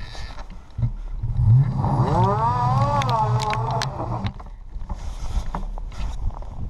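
Electric bike motor whining up in pitch as the rear wheel spins in snow during a burnout, holding a high whine for about two seconds before cutting off, over a low steady rumble. A few sharp clicks come near the top of the whine, and a hissing scrape of snow follows near the end.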